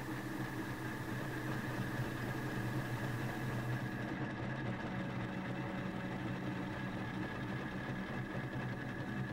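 A steady low hum with a fainter high whine above it, even throughout, over a light hiss that thins out about four seconds in.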